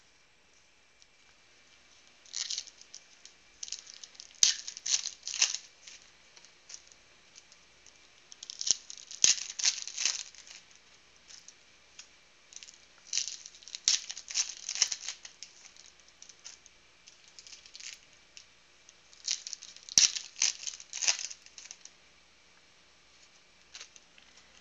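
Foil trading-card pack wrappers being torn open and crinkled in four separate bursts, each a couple of seconds of rapid crackling with a few sharp snaps.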